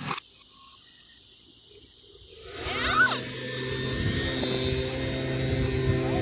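A steady high hiss with a short click at the start, then background music fades in about two and a half seconds in and carries on with steady sustained tones.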